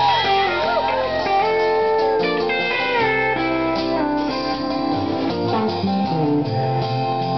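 Live band playing: acoustic and electric guitars over bass and drums, with gliding, bent guitar notes near the start.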